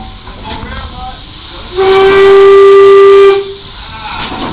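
A steam whistle blows one steady note for about a second and a half, over the hiss of steam escaping from the running 1868 PS Antrim steam engine that drives the slipway winch.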